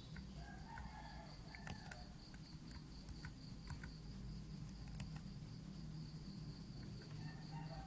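Faint room tone: a low hum under a steady, evenly pulsing high-pitched trill, with a few faint, sharp clicks.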